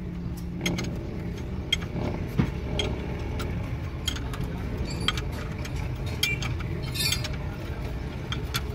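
Light metallic clicks and clinks, scattered irregularly, of a small hand tool working against metal fittings under a truck's gearbox, over a steady low engine rumble.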